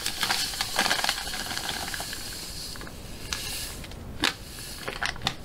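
Granulated sugar being poured into a pot, a steady hiss of running grains that fades after about two and a half seconds, followed by several light clicks and knocks.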